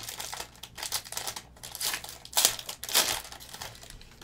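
Shiny trading-card pack wrapper crinkling as it is torn open and handled, in a run of irregular crackles that are loudest about two and a half and three seconds in.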